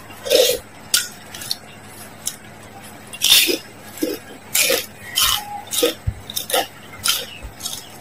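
Close-up eating sounds: a metal spoon clinking lightly against a glass bowl, then a run of short sips and slurps of noodle soup broth from the spoon, roughly one every half second to second from about three seconds in.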